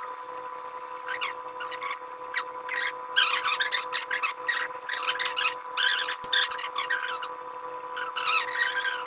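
Barber's scissors snipping hair in quick irregular runs as a beard and hair are trimmed, over a steady faint whine.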